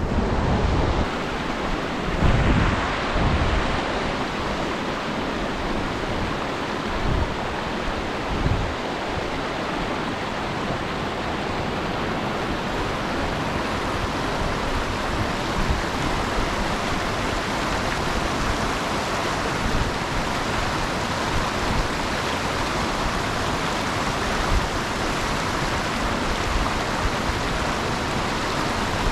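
Mountain torrent rushing steadily over rocks, with a few low thumps in the first several seconds.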